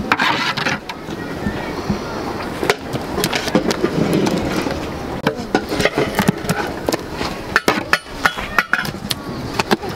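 Metal ladle clinking and scraping against a steel bowl in irregular sharp knocks while liquid is spooned out, with indistinct voices in the background.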